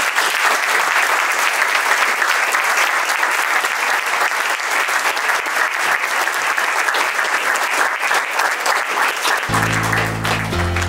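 Audience applauding steadily: many hands clapping together. About nine and a half seconds in, music starts up under the applause.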